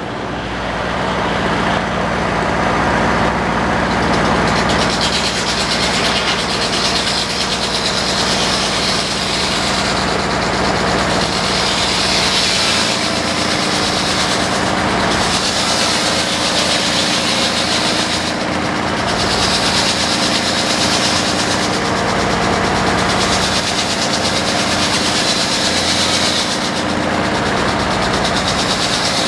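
Tractor engine running steadily under load, driving a flat-belt circular sawmill, with a higher hiss from the spinning blade and belt that swells and fades every few seconds.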